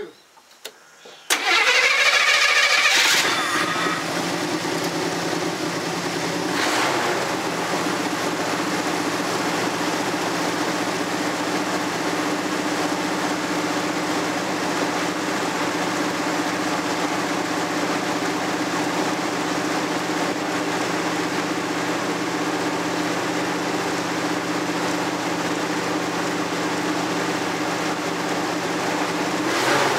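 Chevrolet pickup's engine starting about a second in, on a newly fitted rebuilt starter that replaced one packed full of mud. It comes in with a short loud burst, then settles into a steady idle.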